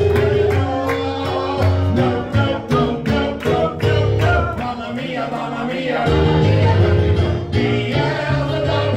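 Music with a steady quick beat, bass, guitar and singing.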